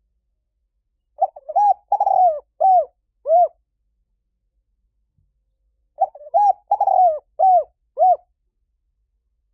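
Spotted dove cooing: two phrases about four seconds apart, each about five notes run together over two seconds. It is a recorded call played as a lure to bring in wild spotted doves.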